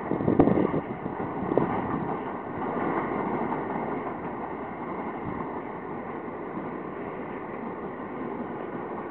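Long Island Rail Road M7 electric commuter train running past, a steady rumble of wheels on track mixed with wind on the microphone. A couple of short louder bumps come in the first two seconds.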